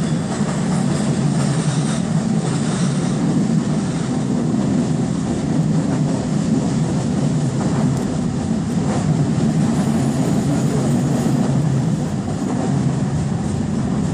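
Budapest Metro Line 1 train running through the tunnel, heard from inside the carriage: a steady low rumble of wheels on rail, with a couple of faint clicks about eight to nine seconds in.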